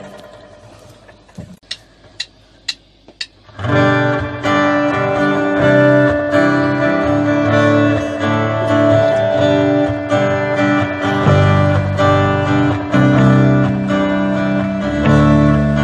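Four sharp clicks about half a second apart count in, then a band comes in playing a song with guitars to the fore.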